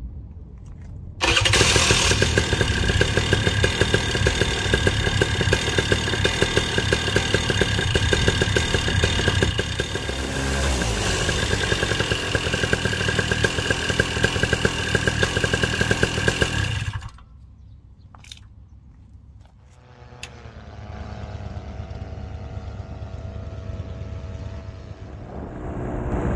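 Vittorazi Moster 185 paramotor engine, a single-cylinder two-stroke, starting about a second in and running steadily on a ground test after its 150-hour inspection, with a brief change of pitch partway through. It stops abruptly after about sixteen seconds, and a quieter engine sound with shifting pitch follows after a pause.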